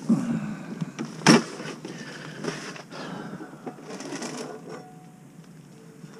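Cooking gear being handled and set out: irregular clatter, rustles and small clicks, with one sharp knock about a second in.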